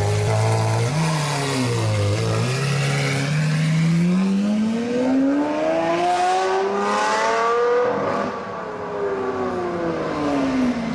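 Lamborghini Aventador SVJ's V12 engine idling, blipped briefly about a second in, then revs climbing steadily for several seconds as it pulls away before falling back near the end.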